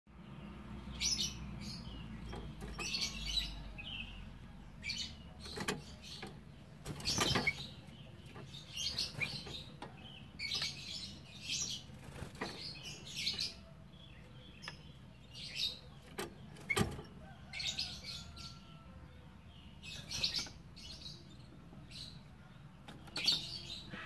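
Yellow-vented bulbul giving short, high chirps again and again, some in quick runs, with a couple of sharp clicks between them.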